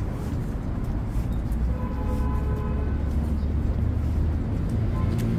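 City street traffic: a steady low rumble of road vehicles, louder for a few seconds in the middle.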